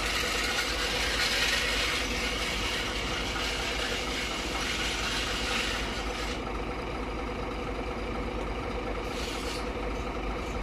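Steady hum of a running machine, with a hiss over it that drops away about six seconds in.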